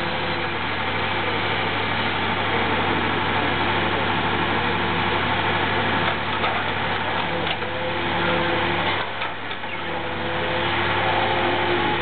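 Timber truck's diesel engine running steadily while it drives the hydraulic loader crane, with a few light knocks about six to eight seconds in and a brief drop in the engine's low hum around nine seconds in.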